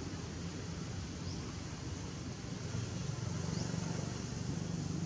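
Steady outdoor background noise with a low rumble, and two faint short high chirps, one about a second in and one past the middle.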